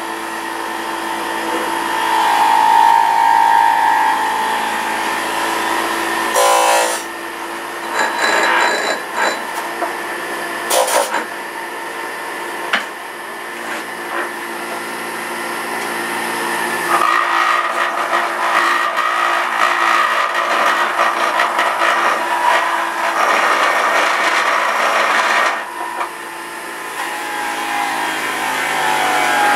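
Electric juicer motor running continuously while spinach is pressed down the feed chute. Its note shifts several times, at about a quarter, just past halfway and near the end, as the load on it changes.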